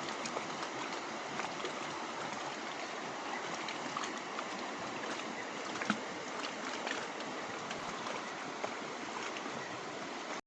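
Steady rushing of flowing water, such as a stream or river current, with a few faint scattered ticks. It cuts off suddenly near the end.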